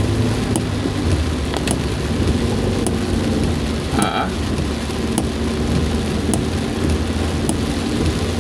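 Heavy rain falling on a moving car's roof and windshield, heard from inside the cabin as a steady hiss, over the low steady hum of the engine and road noise.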